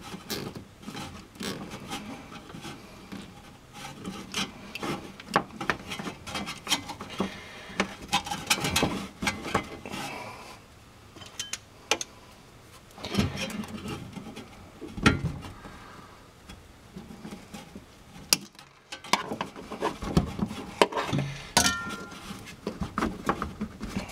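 Hands securing the fuel pump's wiring pigtail on top of a fuel tank: irregular clicks, taps and rubbing of wire and plastic against the tank.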